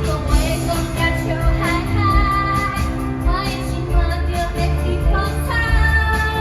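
A song: a high singing voice carries the melody over a band with bass and a steady beat.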